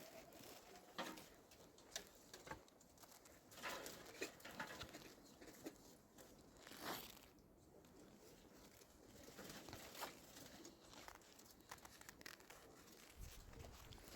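Near silence with faint, scattered rustles and light taps.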